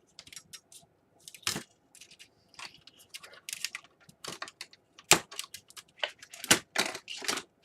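Irregular crackling and sharp clicks from adhesive tape and small plastic parts being worked by hand inside an opened laptop, with a few louder snaps about a second and a half in and again in the second half.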